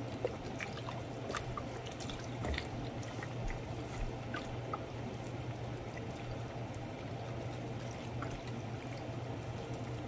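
Chicken broth pouring steadily from a carton spout into a slow cooker and splashing onto the chopped vegetables and meat, with small drips and splatters.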